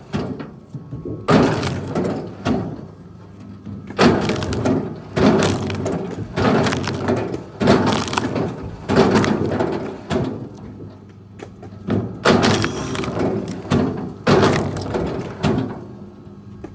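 Wooden branches cracking and snapping in a series of sudden crackling bursts, about one every second or so.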